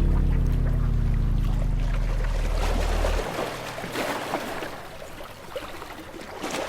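Background music: a held low chord fades and its bass cuts off about three seconds in, leaving a fainter crackling, rushing noise.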